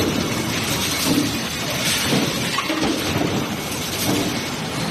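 Hot forging line running: a steady din of machinery with repeated metallic clanks and clinks at irregular intervals, about once a second.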